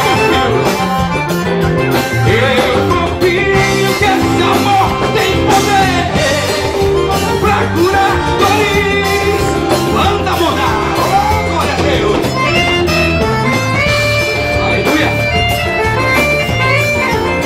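Live gospel band music with a steady beat and electric guitar, and a man singing over it into a microphone.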